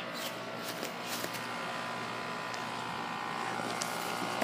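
Carrier Performance Series central air conditioner condenser units running: a steady hum from the compressor and outdoor fan, with several steady tones over it.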